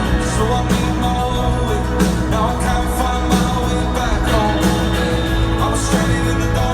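An indie-folk band playing live: a sung lead vocal over a full band, with a steady bass and a regular drum beat.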